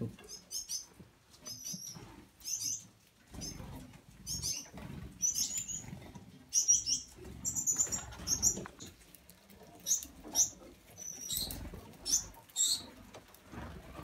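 A flock of Gouldian finches at a seed tray: many short, high chirps and calls, with young birds begging, over wing flaps as birds fly down and land, and soft rustling in the seed.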